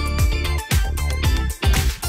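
Background music with a steady electronic dance beat.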